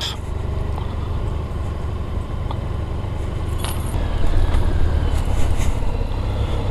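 Motorcycle riding slowly, its engine running with a steady low rumble under wind and road noise, a little louder from about four seconds in. A few light clicks and jingles sound over it.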